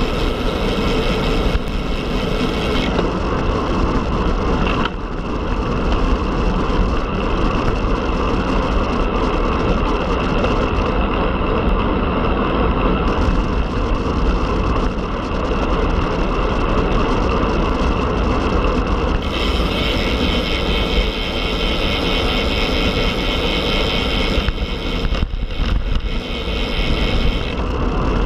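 Steady rush of wind and road noise from riding a Specialized Tarmac Sport road bike at speed.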